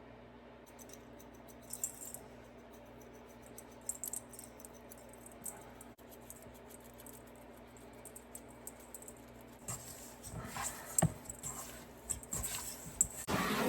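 Food being handled in the kitchen: a few small clicks and rustles over a faint steady hum, then a run of louder knocks and clatter in the last few seconds.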